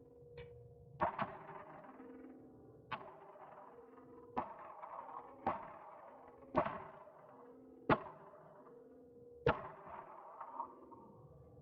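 Gunfire at an indoor range: about nine single shots, spaced roughly one to one and a half seconds apart, each with a short ringing echo.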